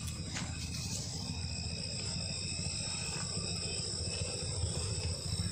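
Crickets and other night insects chirping in steady, high, continuous tones over a low rumble.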